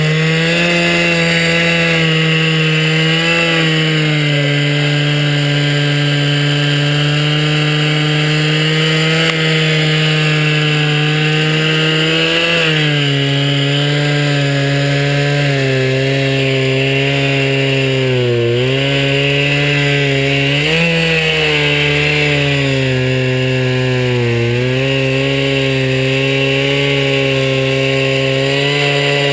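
Chainsaw running at steady high speed in a homemade chainsaw mill, ripping a slab from a blue spruce log. The engine note holds steady and dips briefly a few times along the cut.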